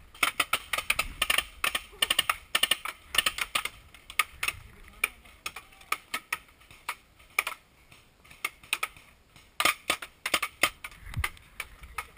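Paintball markers firing in rapid strings of sharp pops, volley after volley, thinning out for a few seconds in the middle and picking up again near the end.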